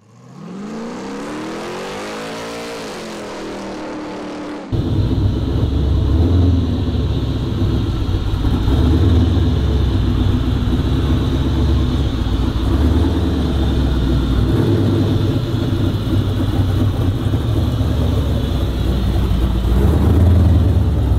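A pitched tone sweeps up and settles for the first few seconds, then about five seconds in a steady, deep engine rumble takes over: the 1968 Chevrolet C10's 502 big-block V8 running as the truck drives by, swelling and easing a little now and then.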